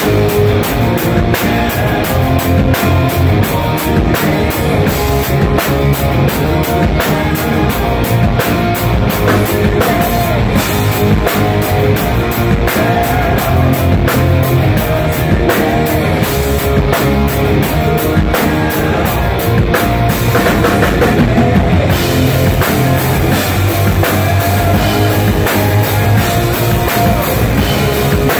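Live rock band playing loud: electric guitars over a drum kit, with cymbal and drum hits keeping a steady beat.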